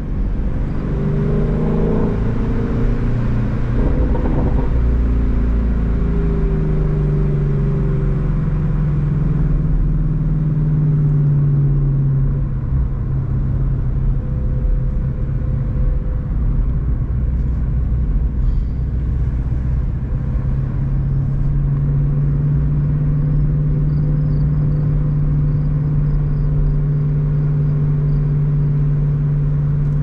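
Ford Shelby GT350's 5.2-litre Voodoo flat-plane-crank V8 running while the car is driven. Its pitch rises and falls in the first few seconds, then it settles into a steady drone.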